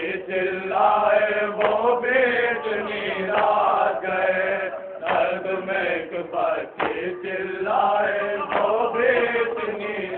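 Male voices chanting a nauha, a Shia lament for the martyrs of Karbala, in long drawn-out phrases with short breaks between them.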